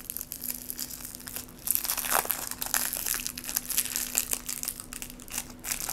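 Cellophane lollipop wrapper crinkling as it is peeled off a Chupa Chups lollipop by hand, in irregular crackles that grow louder about two seconds in.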